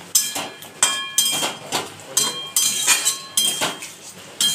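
A metal utensil knocking and scraping against a cooking pan while stirring chicken balls in a thick sauce, about two or three ringing clinks a second.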